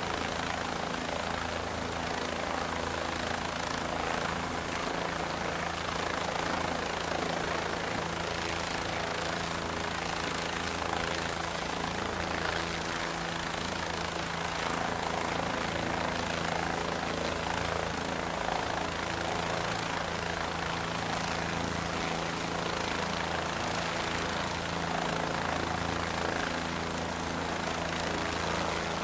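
MQ-8C Fire Scout unmanned helicopter hovering close by: the steady drone of its rotor and single turboshaft engine, a low even hum under a wide rushing wash of air.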